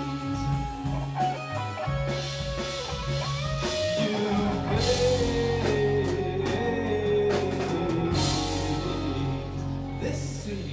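Live rock band playing an instrumental passage: electric guitar, bass guitar and drum kit with cymbal crashes, with a lead line that slides and bends in pitch through the middle.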